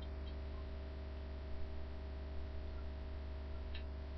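Steady low electrical mains hum, with a few faint light clicks from a small toy car being handled.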